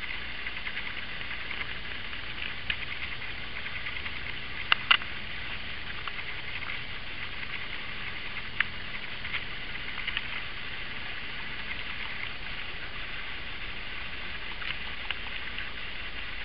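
Sparse, irregular clicks of computer keyboard keys being typed, with a couple of louder taps about five seconds in, over a steady hiss.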